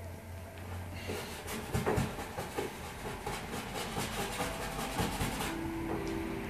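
Paintbrush scrubbing oil paint onto a large canvas in quick, repeated strokes, from about a second in to about five and a half seconds in.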